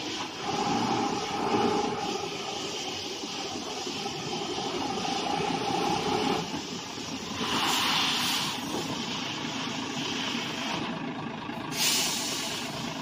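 Diesel engine of a HOWO 6x4 tractor truck running as the truck drives slowly up, with a short hiss of air about halfway through and another near the end, typical of the truck's air brakes.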